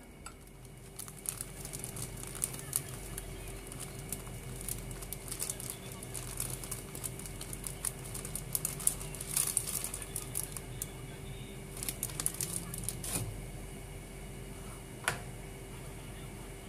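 Irregular crinkling and light clicking of a plastic bag of flour being handled, most of the way through, with one sharper click near the end, over a faint steady hum.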